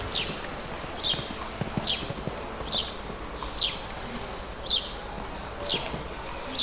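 A bird repeating a short falling whistle about once a second, over the soft, muffled thuds of a horse cantering on sand.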